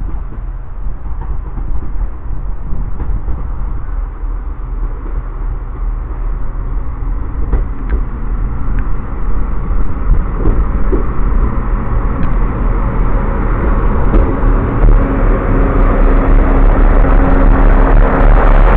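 Class 158 diesel multiple unit approaching and running in alongside the platform, its engine rumble growing steadily louder, with a few faint clicks along the way.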